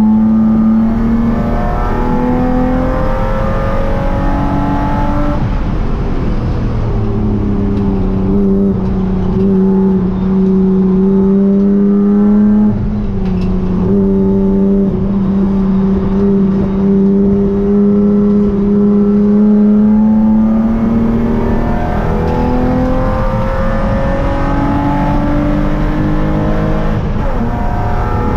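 Spec3 BMW E36 race car's straight-six engine heard from inside the stripped cabin, pulling hard around the track. Its pitch holds steady or climbs slowly for long stretches and drops sharply a few times, about a second in, around six, thirteen and twenty-one seconds.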